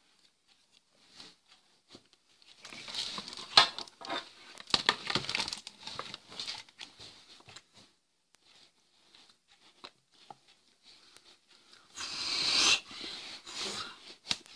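Rustling and handling noise close to the microphone: a leather jacket and hands moving, with a few sharp knocks, in two noisy stretches separated by near silence.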